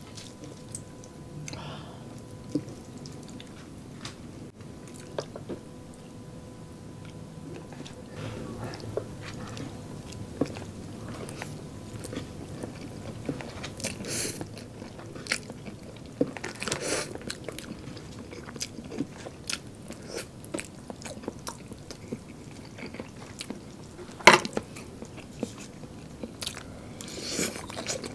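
Close-miked eating sounds: chewing and biting, with wet slurps of spaghetti and palabok noodles. There are many small clicks throughout and one sharp click, the loudest sound, about three-quarters of the way through.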